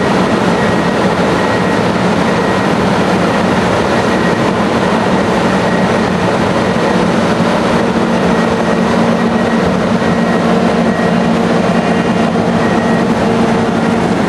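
Gleaner S77 combine harvester running steadily: a loud, even mechanical din with a constant hum under it.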